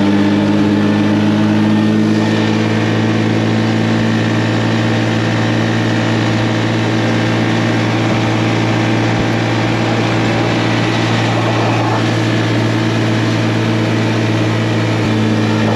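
The 125cc engine of a mini Jeep running steadily while driving along at an even cruising speed, its pitch holding constant.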